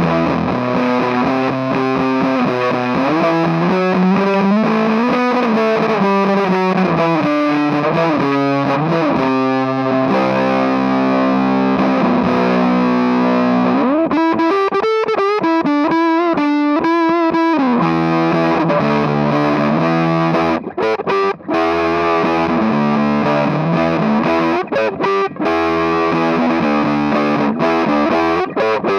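Electric guitar played through a Sound Sounds hybrid fuzz box pedal, giving a thick, distorted fuzz tone. About halfway through, the tone changes abruptly and shifts for a few seconds as the pedal's knobs are turned.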